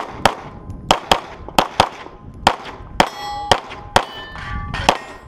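Rapid pistol shots with steel plate targets clanging and ringing as they are hit, about a dozen sharp reports at roughly two per second, often in quick pairs.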